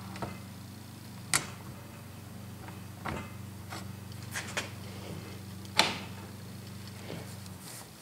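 Steel lead screw sliding through the worm of a South Bend 9-inch lathe apron, with several sharp metal clicks and clinks as it goes; the loudest come about a second and a half and about six seconds in. The new keyway rides over the worm's key in a smooth sliding fit. A steady low hum sits underneath and stops near the end.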